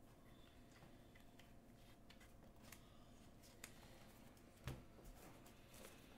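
Near silence: faint room tone with a few soft clicks of playing cards and deck boxes being handled, the loudest about four and a half seconds in.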